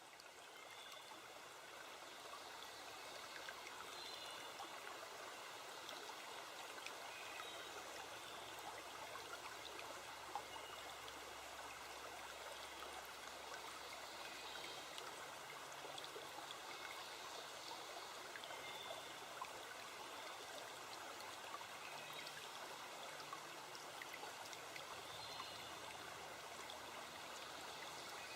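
Running water of a stream, a steady splashing hiss that fades in over the first couple of seconds, with faint short high chirps now and then.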